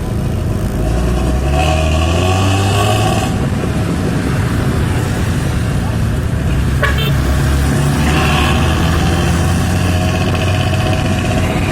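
Hino AK3HR bus's diesel engine running through a modified 'ngorok' snoring-style exhaust, revving up about a second in, with a high rasp from the exhaust that comes and goes.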